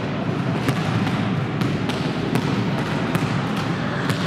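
Volleyball game noise in a sports hall: a steady hubbub of voices with several sharp slaps and knocks of the ball and players' feet scattered through it.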